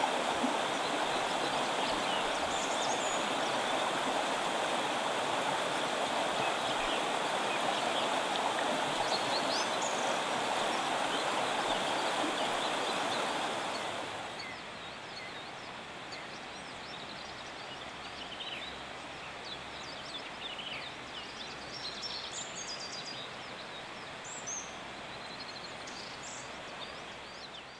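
Shallow rocky river flowing steadily, its rush dropping to a quieter background about halfway through. Small birds chirp over it with short high calls in the second half.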